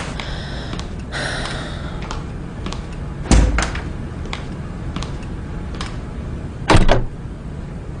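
Footsteps and a door in a room: light knocks and steps with two heavy thumps, one about three seconds in and a louder one near seven seconds.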